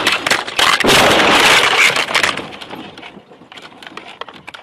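Vehicle crash heard through a dashcam's own microphone: loud crashing and scraping for about two seconds, then fading scattered clicks and rattles as the knocked-loose camera and debris settle.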